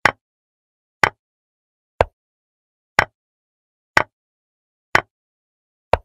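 Chess program's piece-move sound effect: a short sharp click about once a second as each move of the game is played on the board, with dead silence between clicks.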